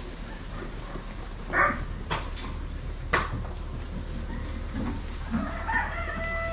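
Sheep calling in a barn: a short bleat about one and a half seconds in and a long drawn-out call with slowly falling pitch near the end, with a few sharp knocks in between.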